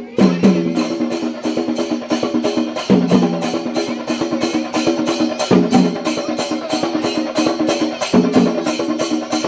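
Festival percussion music: fast, even drum strokes, about four a second, under a short melodic phrase that repeats roughly every two and a half seconds.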